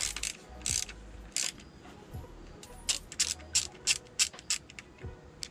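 Hand ratchet on a long socket extension clicking in short back-and-forth strokes, tightening the base bolts of a new breather tower on a VW waterboxer engine. About a dozen bursts of clicks, coming faster from about three seconds in.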